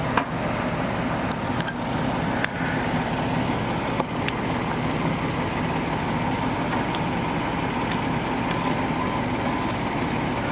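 Fire engine's engine running steadily, a constant low hum with a faint high whine over it, mixed with the rush of the boat fire and a few sharp pops, the loudest just at the start.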